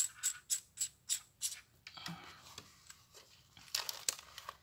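Quick run of light plastic clicks, about three a second, from fingers working the Boya BY-M1 lavalier microphone's battery housing. Soft rustling follows, with a louder patch near the end.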